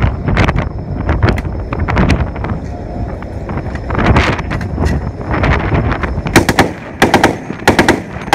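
.50 caliber machine gun firing short bursts, the shots sharpest and most closely spaced in the last two seconds, over low wind rumble on the microphone.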